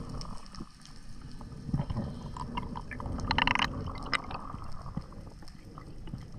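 Underwater sound heard through a diver's camera housing: a muffled, low rush of moving water with scattered clicks, and a brief squeaky tone about three seconds in.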